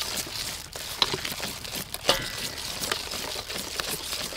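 Wire whisk stirring thick flour batter in a stainless steel bowl: a soft scraping rasp, with two sharp metallic clinks of the whisk against the bowl about one and two seconds in.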